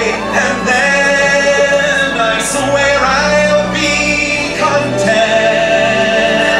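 Fireworks-show soundtrack music with a man singing over it, in long held notes.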